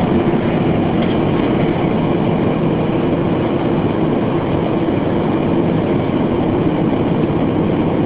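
Steady road and engine noise of a car driving, heard from inside its cabin.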